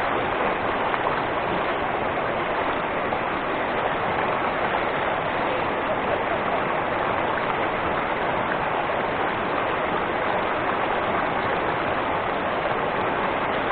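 Steady rush of a mountain waterfall, an even hiss of falling water that does not change.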